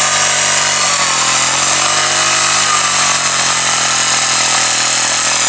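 A steady engine noise under a strong hiss, its pitch drifting slowly up and down.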